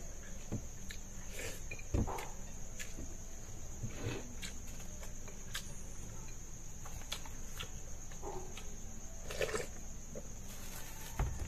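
Steady, high-pitched chirring of night insects, with scattered soft clicks and knocks of a meal being eaten with hands and a spoon from plates and containers.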